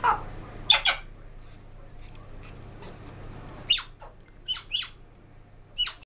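African grey parrot making short, sharp squawking calls: a few near the start, then a run of louder calls in the second half that slide down in pitch.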